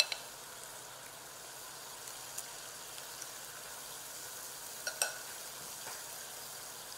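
Pancake batter frying in an ungreased nonstick pan, a steady soft sizzle. A sharp click at the start and another about five seconds in.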